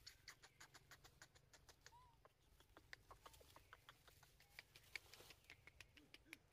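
Faint, irregular crackling and ticking of leaves and twigs as macaques climb and move through the undergrowth, several small clicks a second, with one short faint squeak about two seconds in.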